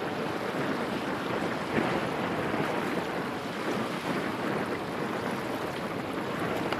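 Steady wind on the microphone over choppy open water, with waves slapping: an even rush with no distinct events.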